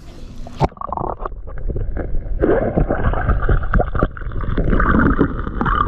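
Muffled underwater sound from a submerged camera: hands digging into sand and cobbles on a creek bed, with many small stone clicks and knocks over a steady rushing of water and stirred silt.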